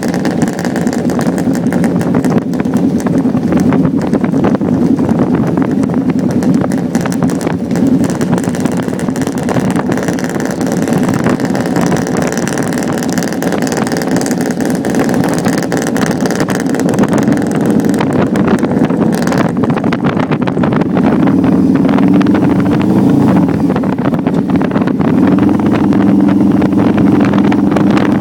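Cruiser motorcycle engine running steadily while riding, heard from the rider's seat with wind rushing over the microphone. The engine note settles into a steadier, even hum about two-thirds of the way through.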